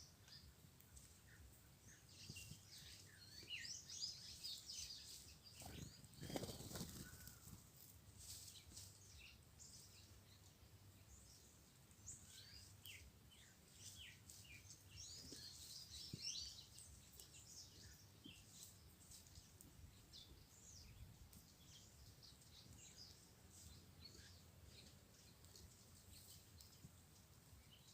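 A flock of small birds, red-cowled cardinals among them, giving many short chirps and calls, busiest in two stretches, with a brief low rustle about six seconds in.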